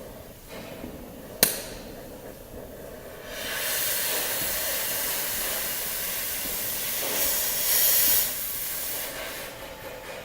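Oxy-acetylene cutting torch cutting sheet metal: a low steady flame hiss, a sharp clink about a second and a half in, then from about three seconds in a much louder hiss as the cutting oxygen jet blows through the metal, loudest near the eighth second and easing off near the end.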